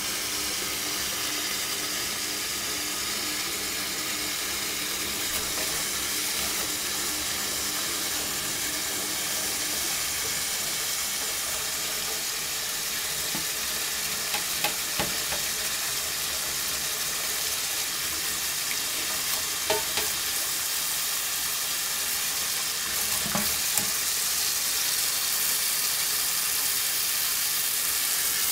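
Kitchen tap running a thin stream of water into a stainless steel sink: a steady hiss and patter, with a few brief clicks in the middle and near the end.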